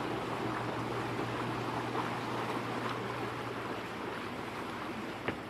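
Steady wash of open-water and wind noise around a boat on calm water, with a low steady hum for the first couple of seconds and a single sharp click near the end.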